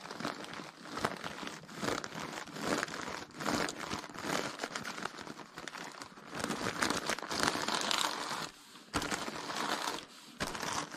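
Baking paper and the nylon tarp beneath it crinkling and rustling as a small household iron is pushed back and forth over them, pressing hot-melt seam-sealing tape onto a seam. The rustling swells for a couple of seconds past the middle, then drops briefly near the end.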